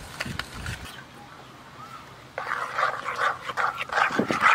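A spoon clicking against a steel mixing bowl of watermelon pulp, a few light clinks in the first second. A little past halfway, loud animal calls start suddenly and come in a rapid, repeated series.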